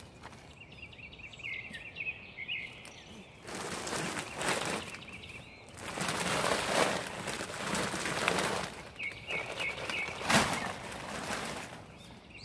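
Heavy sacks of chicken feed rustling and scraping as they are dragged and heaved onto a hand truck, with a sharp thud about ten seconds in. A small bird chirps in quick runs near the start and again near the end.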